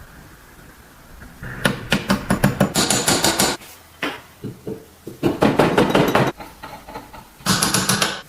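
Rapid hard tapping or clattering in three bursts of one to two seconds each, several sharp clicks a second, with short pauses between.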